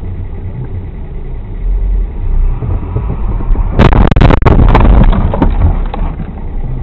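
Car travelling with a steady low road and engine rumble, then about four seconds in a road collision: a loud crash with several sharp bangs and crunches over about a second and a half, tailing off after.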